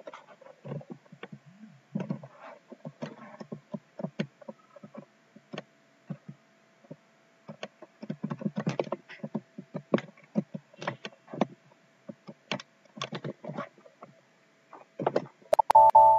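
Typing on a computer keyboard: irregular clusters of keystroke clicks with short pauses between them, over a faint steady hum. About a second before the end comes a short, louder beep-like tone.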